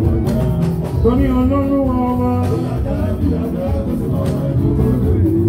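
Party band music: a voice singing held, gliding lines over percussion and bass.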